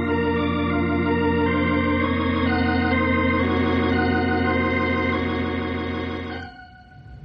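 Organ bridge music playing held chords over a steady bass note, with the chords changing a few times, then stopping about six and a half seconds in. It is the musical bridge that marks a scene change in the radio drama.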